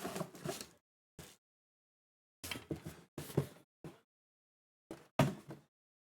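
Bubble-wrapped keyboard shelf being unwrapped and handled: short bursts of plastic wrap rustling with a few knocks, the loudest about five seconds in.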